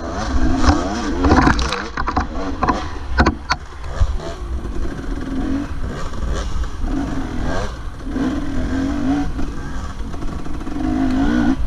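Dirt bike engine on the riding bike revving up and down over and over as the throttle is worked through the trail. Sharp knocks in the first few seconds, with wind rumble on the on-board microphone underneath.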